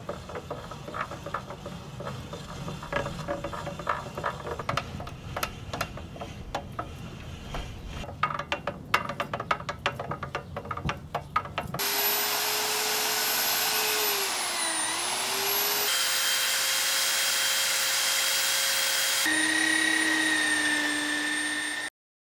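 Steel roll bender cranked by its handwheel as a 1-inch round steel bar rolls through, with dense, irregular clicking and creaking. About twelve seconds in, this gives way abruptly to an electronic sound effect: steady tones over loud hiss, one tone dipping in pitch and coming back, changing twice before cutting off suddenly.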